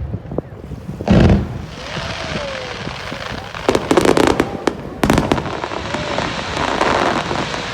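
Aerial fireworks bursting: a deep boom about a second in, then a quick cluster of sharp bangs around four seconds and another bang at five, with crackling between the bursts.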